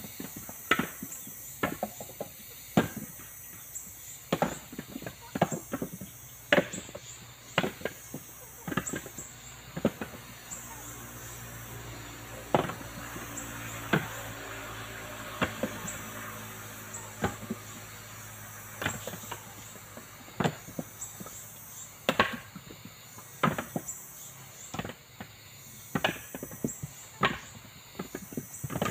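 Husked coconuts knocking against one another as they are tossed one by one onto a pile, in irregular knocks about one or two a second. Crickets chirp steadily behind them.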